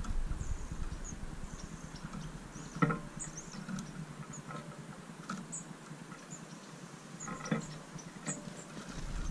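European goldfinch feeding at a metal-mesh seed feeder: fine scratching and tapping of beak and claws on the mesh, with a sharper knock about 3 s in and another near 7.5 s. Short high bird chirps come and go throughout.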